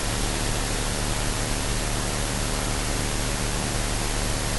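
Steady hiss with a faint low hum: the noise floor of an investigation audio recording played back at high gain, with no voice in it.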